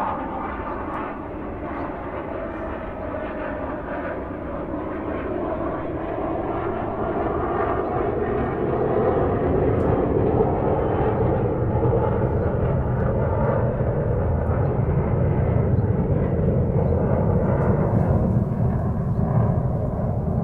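Airplane engine and airflow noise heard inside the cabin: a steady rush that swells louder between about six and ten seconds in as a deeper rumble builds.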